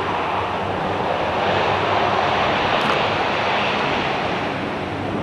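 Twin Pratt & Whitney PW2040 turbofans of a Boeing C-32 (military 757-200) running as the jet begins its takeoff run: a loud, steady rushing jet noise that swells a little around the middle.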